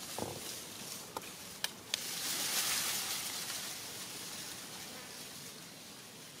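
Insects buzzing, swelling to a high hiss about two seconds in and then fading, with a few small sharp clicks just before it.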